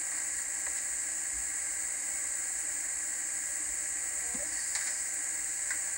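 Steady hiss from an old home camcorder tape recording, with a few faint ticks.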